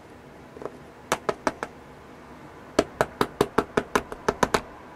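Small plastic housing of an HO-scale pancake motor tapped against the workbench to knock out a carbon brush that stays stuck. There are a few sharp taps about a second in, then a quicker run of about ten taps near the end.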